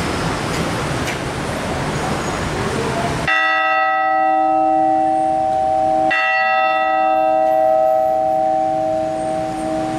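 A church bell struck twice by its clapper, pulled by hand on a ring, about three seconds apart. Each strike rings on with several long, slowly fading tones. Before the first strike there is a steady rush of background noise.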